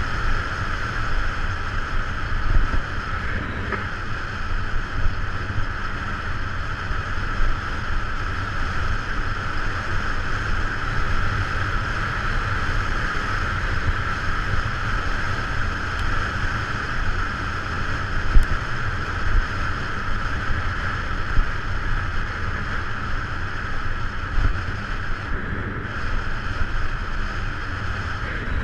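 Steady wind rush and low road rumble on the microphone of a camera moving along a road, with no change in pace.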